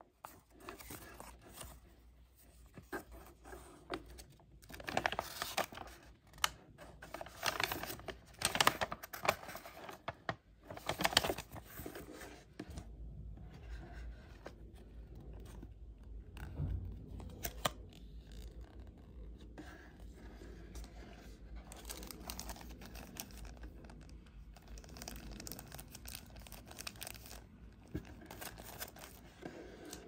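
Paper rustling and crinkling as a printed instruction manual and a card are handled, in irregular bursts that are loudest about eight to eleven seconds in, then fading to faint handling noise.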